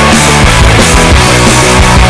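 Loud distorted rock music with a driving beat.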